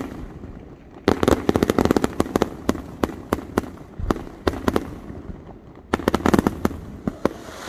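Aerial fireworks bursting overhead in quick strings of sharp crackling pops. The pops come in clusters, the first starting about a second in, another around four and a half seconds and a last burst near six seconds.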